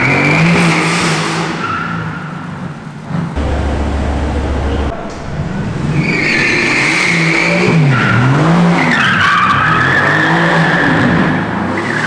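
Mercedes-AMG GT S drifting: its twin-turbo V8 revs up and down again and again while the tyres squeal. The screeching comes at the start and again in a longer stretch from about six seconds in.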